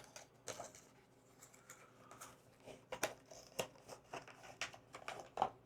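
A flashlight's retail packaging being opened by hand: scattered rustling and crinkling with small clicks and taps as the contents are handled.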